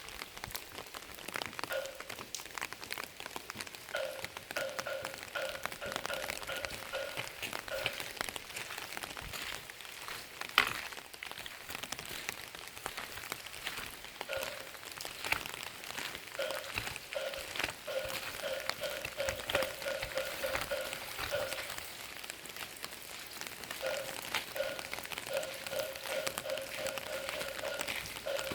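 Steady rain, with drops pattering and tapping on surfaces and one loud tap about ten seconds in. Runs of a short pitched note, repeated several times a second, come and go over the rain three times.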